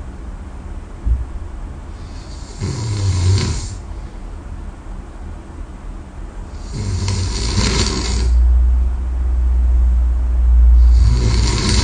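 A person snoring in deep sleep, with three noisy, hissing breaths about four seconds apart. A strong, deep low rumble carries on for about three seconds between the second and third breaths.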